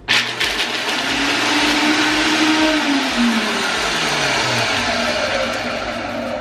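Countertop blender running on low speed, grinding almonds into small chunks. It starts abruptly and runs steadily, with a tone that drops in pitch about three seconds in.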